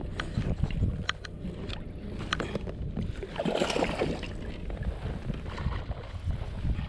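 Wind rumbling on the microphone aboard a fishing kayak, with scattered small clicks in the first few seconds and a brief louder rush of noise about three and a half seconds in.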